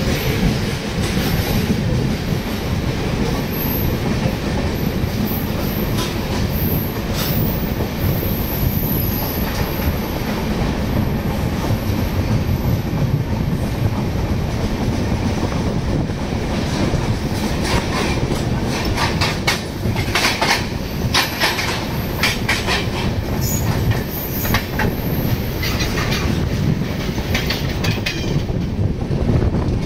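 Indian Railways express train running with a steady rumble just after leaving the station. A high wheel squeal comes in the first third, and sharp wheel clacks over rail joints and points grow thick in the second half.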